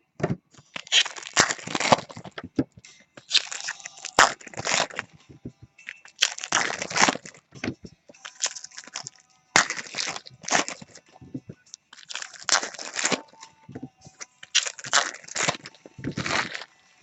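Foil wrappers of trading-card packs being torn open and crumpled, in about seven crackling bursts with sharp snaps among them.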